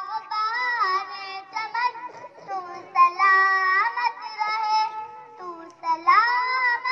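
A child singing a melodic song in a high voice, with long held, wavering notes in phrases broken by short pauses.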